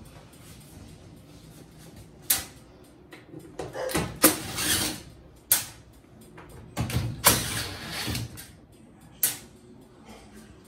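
Cordless drill running in several short bursts as it backs Torx screws out of a washing machine's sheet-metal top panel, with clunks of the bit and drill against the cabinet.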